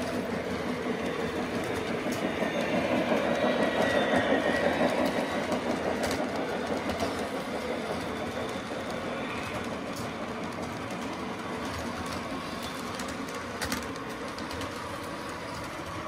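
Lionel O-gauge model trains running on FasTrack: a steady rumble and clatter of wheels on the rails. It swells about three to five seconds in, as a train passes close.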